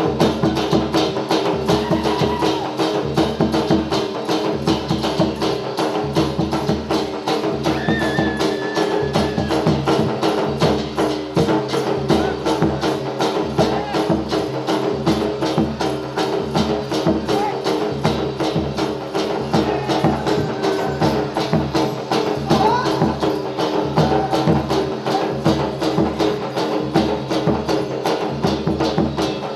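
Music for a Gujarati folk dance: a fast, even percussion beat with jingling and clacking strokes over a steady held drone.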